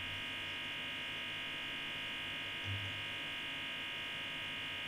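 A steady electronic buzz made of several even high-pitched tones, unchanging throughout, with a faint low bump a little past halfway.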